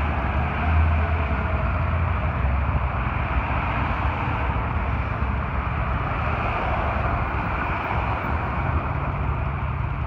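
Street traffic: a steady low engine rumble with road noise as vehicles, among them a fire rescue truck, pass along the road. The rumble is heaviest in the first two seconds.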